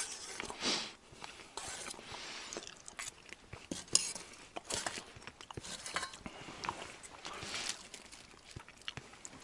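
A meal being eaten: a spoon clinking and scraping in a steel bowl, chewing, and short rustles now and then.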